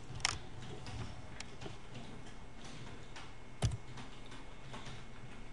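Scattered clicks of a computer mouse and keyboard, two of them sharp and louder: one just after the start and one about three and a half seconds in, with fainter ticks between, over a steady low hum.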